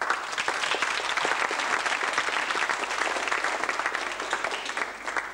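Audience applauding, many hands clapping at once; the applause dies away near the end.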